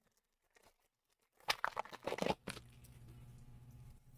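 Foil booster pack wrapper being torn open and crinkled, a quick cluster of tearing and rustling about a second and a half in, followed by a steady low hum.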